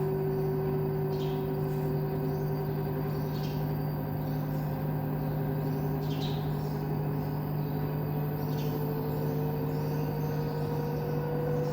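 LG front-load washing machine's direct-drive motor and drum spinning up toward maximum spin in test mode, a steady whine that rises slowly in pitch, over the steady hum of the drain pump. It runs smoothly with no rubbing, and no LE error follows once the faulty Hall sensor has been dealt with.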